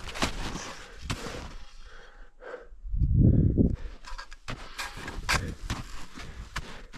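Footsteps crunching and plunging through deep, icy snow on a steep slope, in an uneven rhythm, with a brief low rumble about three seconds in.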